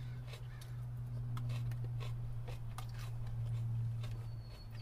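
Plastic fork scraping and clicking against a clear plastic salad bowl in short, irregular ticks, with chewing, over a steady low hum.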